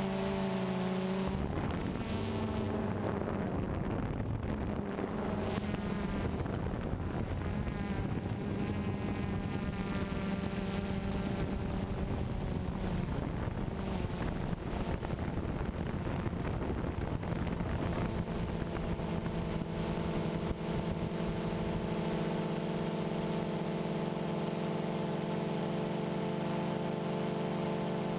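DJI Phantom 2 quadcopter's four electric motors and propellers buzzing in flight, heard from the GoPro carried on the drone itself. The pitch shifts and wavers through the first half as the drone manoeuvres, then settles into a steady hum about two-thirds of the way in.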